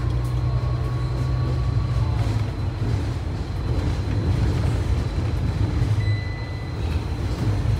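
Steady low rumble of a moving city bus, engine and road noise, heard from inside the bus, with a faint thin whine now and then.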